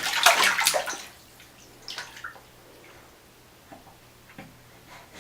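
Bathwater splashed by a baby: several quick splashes in the first second and a few more about two seconds in, then faint drips.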